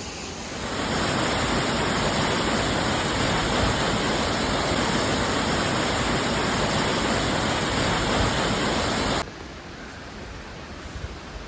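Waterfall rushing steadily and loudly. The sound cuts off abruptly about nine seconds in, leaving a quieter steady rush of water.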